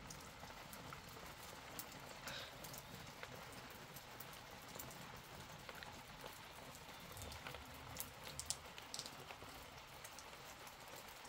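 Light rain falling, a faint steady hiss with scattered ticks of drops striking hard surfaces.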